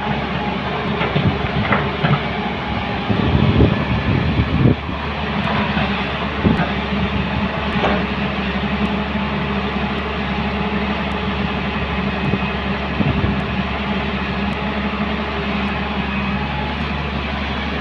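Diesel engines of a tracked excavator and a backhoe loader running steadily under work, with irregular metallic clanks and rumbles that are loudest about three to five seconds in.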